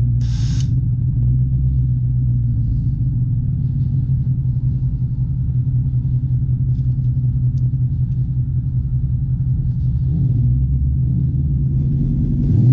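2018 Mustang GT's 5.0 Coyote V8 idling steadily with a deep rumble while waiting to make a nitrous drag pass. A short hiss sounds at the very start.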